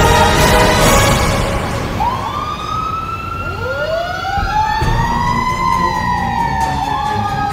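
Fire engine siren winding up about two seconds in over the truck's low engine rumble. A second siren wail rises from lower pitch a little later, and both peak and then slowly fall in pitch.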